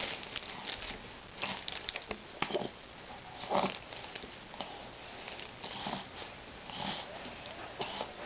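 Baby's snuffly breathing and small breathy noises, short sniffing bursts coming about once a second.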